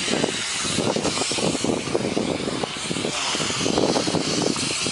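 Engine-driven shotcrete equipment running steadily, with a constant hiss over the engine noise.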